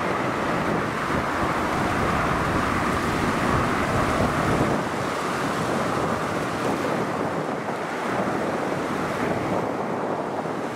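Steady jet engine noise from a large military transport aircraft, with a hissing band that slowly sinks in pitch and eases after about seven seconds, and wind buffeting the microphone.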